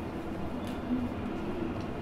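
Railway station concourse ambience: a steady low rumble of the hall with a faint murmur of distant voices and a light tick a little under a second in.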